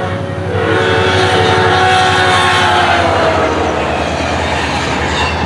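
SunRail commuter train sounding its horn as it passes, the horn chord dropping in pitch about three seconds in, over the steady rumble of the train.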